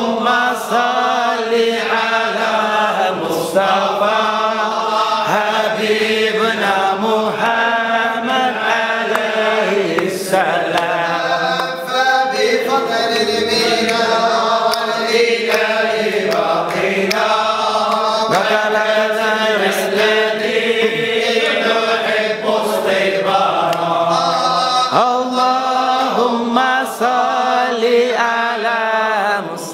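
Group of men chanting a Sufi devotional qasida together in Arabic, many voices singing in unison without a break.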